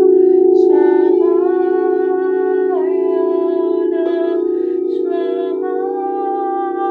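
A steady, beating drone of singing bowls, with a wordless sung voice above it holding long notes and sliding from one pitch to the next every second or two.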